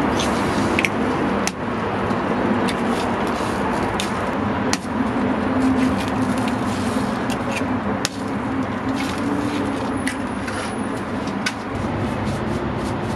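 Sharp taps of eggshells cracked on the edge of a metal egg-bread mould, about one every three seconds, over a steady hum of background noise.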